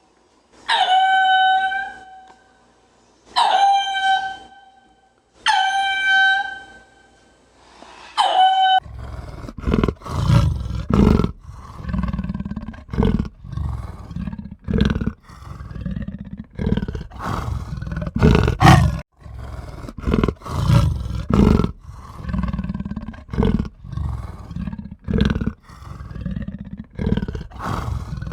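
Animal calls: four short, high, clear calls a couple of seconds apart, then a long run of deep, rough calls repeated in quick succession.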